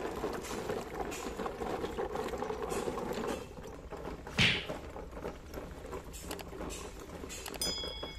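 Shallow stream water gurgling and splashing around plastic toy trucks as they are towed through it. The churning is steady for the first three seconds or so, then eases, and one sudden louder splash comes about four and a half seconds in.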